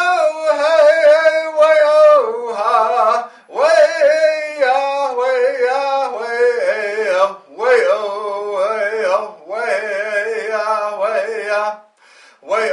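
A man singing solo and unaccompanied in a chant-like style. He holds three long phrases whose pitch slides and wavers, with short breath pauses between them.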